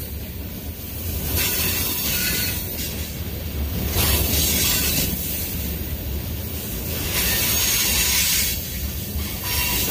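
Freight cars of a Union Pacific manifest train rolling past close by: a steady low rumble of steel wheels on rail, with a high-pitched hiss that swells and fades several times.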